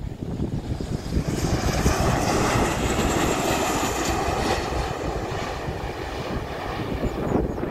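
Boeing 737-800's CFM56 jet engines running through the landing: a steady rumble with a faint high whine as the airliner flares and touches down on the runway.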